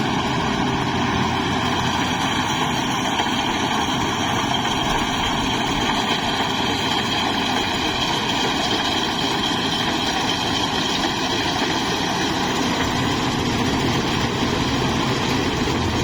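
Rice combine harvester running steadily, its engine and machinery giving a continuous even drone.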